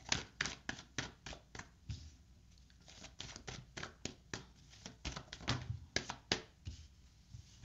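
Oracle cards being shuffled and handled by hand: a run of quick, irregular card snaps and flicks.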